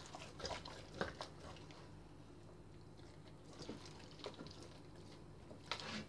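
Faint wet squishing and rubbing of hands working seasoning into the skin and cavity of a raw whole duck, with a few light knocks of the bird against a wooden cutting board, the sharpest about a second in and another near the end.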